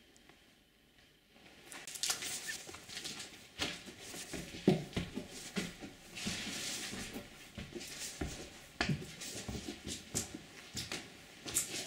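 Footsteps scuffing and crunching on debris-strewn stairs, an irregular run of knocks and gritty scrapes starting about a second and a half in.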